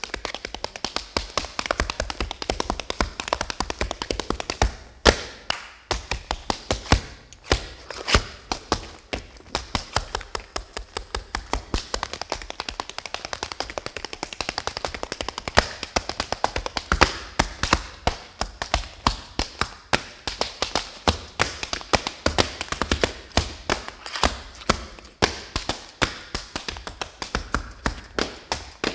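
Tap shoes striking a wooden stage floor in a fast solo tap dance: dense, rapid strings of taps and heel drops, broken by a few brief pauses.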